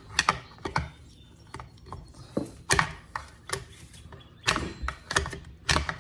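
Screwdriver prying and scraping at a fuel filter wedged inside a Husqvarna 136 chainsaw's fuel tank: irregular metal-on-plastic clicks and scrapes, coming thicker near the end.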